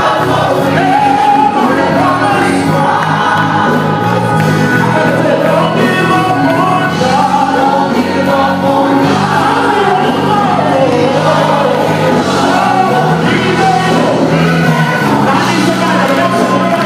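Gospel choir singing with instrumental accompaniment, held notes over a steady low bass.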